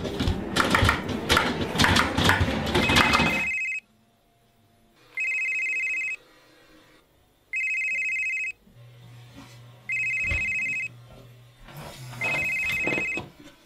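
Telephone ringing: five electronic rings, each about a second long and a couple of seconds apart. Before the first ring, a loud stretch of clattering noise fills the first few seconds.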